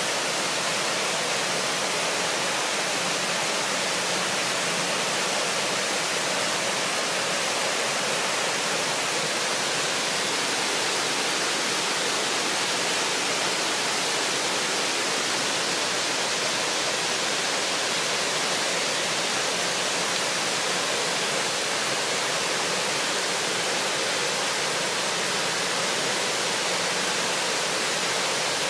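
Steady rushing of water, an even hiss-like rush that does not change.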